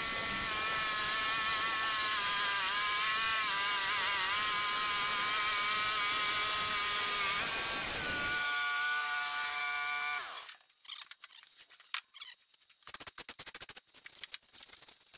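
Wood-Mizer LT15 portable bandsaw mill running through a cut in a hard maple log, its pitch sagging briefly under load a few seconds in. About eight seconds in it drops to a lower pitch and stops about two seconds later, leaving scattered light clicks.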